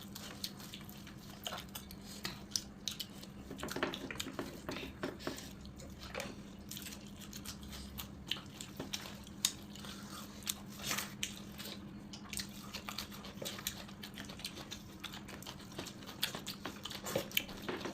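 A person eating close to the microphone: chewing with frequent short, wet mouth clicks and smacks. A steady low hum runs underneath.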